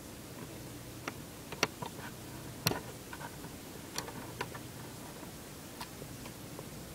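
Faint, scattered clicks and taps from small plastic laptop parts being handled, about eight in all, the sharpest a little past the middle.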